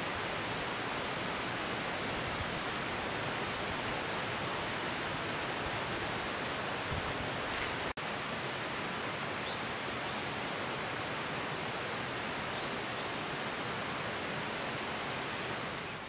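Steady rush of water from a mountain stream tumbling over rocks, with a brief sharp break about eight seconds in.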